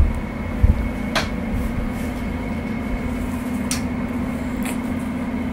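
Steady low machine hum with rumble underneath, with a soft thump under a second in and a few light clicks spread through.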